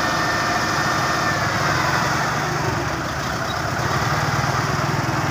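Belarus tractor's diesel engine running steadily, with an even low throb.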